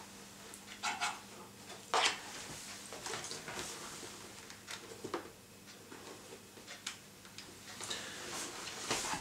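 Hands rustling and scuffing inside a motorcycle helmet's padded lining while pressing an adhesive-backed headset part onto its leather, with louder scuffs about one, two and nine seconds in. A faint steady hum runs underneath.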